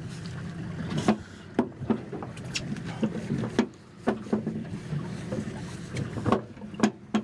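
Boat engine idling with a steady low hum, under scattered sharp clicks and knocks at irregular moments.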